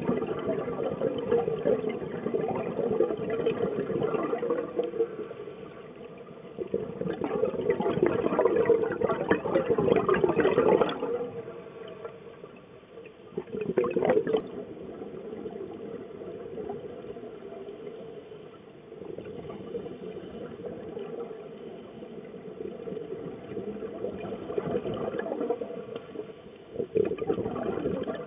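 Scuba regulator exhaust bubbles heard underwater: rushes of bubbling lasting a few seconds each, with quieter stretches between breaths.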